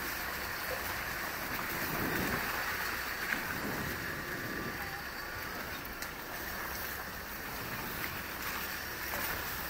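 A vehicle driving: steady road and engine noise with wind rushing over the microphone, and one sharp knock just over three seconds in.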